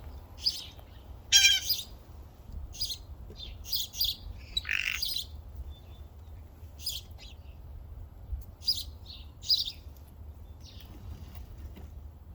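Blue jay giving a series of short, varied calls, some harsh and squawking, with the loudest call about a second and a half in and a lower, longer one near five seconds.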